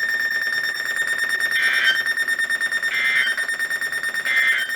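Three short screeching data bursts, about a second and a half apart, typical of the SAME digital header that opens a NOAA Weather Radio alert. Under them runs a steady, rapidly pulsing high tone.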